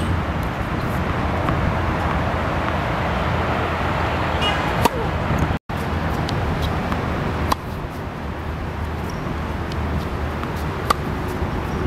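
Steady outdoor background rumble like distant traffic, with a few sharp pops of a tennis racket striking the ball, one a little before the middle and one near the end. The sound cuts out for an instant about halfway through.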